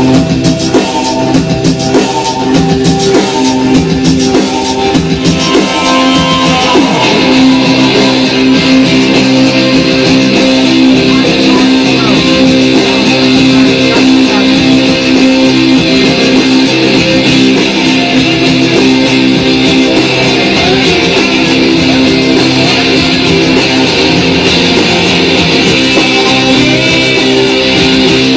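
Rock music with guitars and a drum kit, growing fuller and brighter about seven seconds in.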